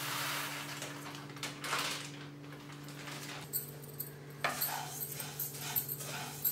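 Dry coriander seeds poured from a packet into a non-stick kadai with a rushing hiss, then a spatula stirring and scraping them around the pan, with many small clicks from about three and a half seconds in.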